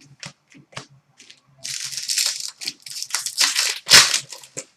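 An Upper Deck hockey card pack's wrapper being torn open and crumpled. A few small clicks come first, then about three seconds of crinkling and crackling, loudest near the end.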